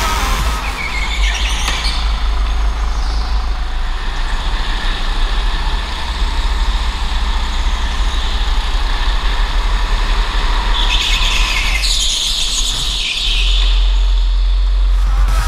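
Onboard sound of a go-kart lapping an indoor concrete track: steady rumble and rolling noise, with the tyres squealing through corners about a second in and again around eleven to thirteen seconds.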